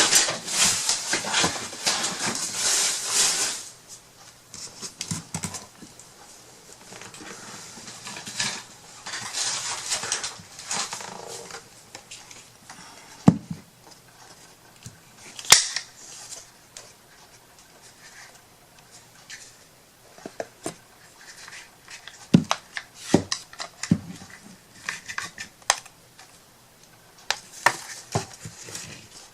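Craft materials being handled on a tabletop: a few seconds of rustling and scraping at the start, then scattered sharp clicks and light knocks.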